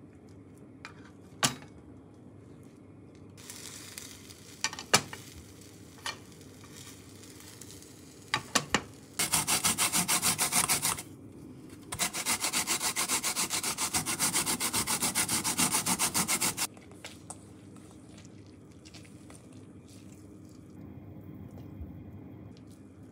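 Fast, even rubbing or scraping strokes in food preparation, in two runs of about two and four and a half seconds, after a few sharp knocks.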